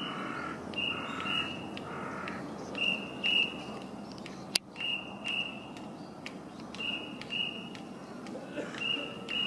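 A bird calling a high, whistled two-note call, repeated five times at about two-second intervals, with a sharp click about halfway through.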